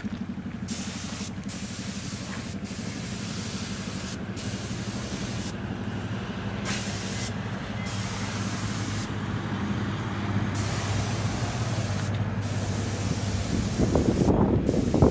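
Gravity-feed compressed-air paint spray gun hissing as paint is sprayed onto tractor bodywork, stopping and starting several times as the trigger is let go. A steady low hum runs underneath, with a louder rumble near the end.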